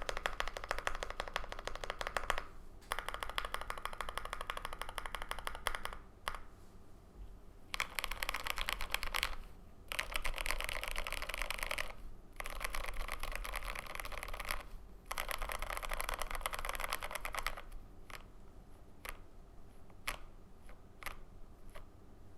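Mechanical keyboard typing: a GMMK Pro with lubed Everglide Aqua King V3 linear switches on a polycarbonate plate, with OSA keycaps, keys pressed in fast bursts of rolling keystrokes with short pauses between. Near the end the typing slows to a few single keystrokes.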